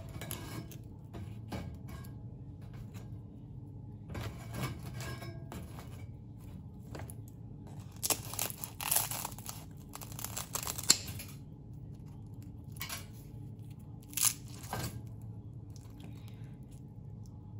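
Kitchen scissors cutting through crisp fried turon (banana spring rolls), the fried wrapper crunching and crackling. The crunching comes in three bunches, the longest and loudest about halfway through.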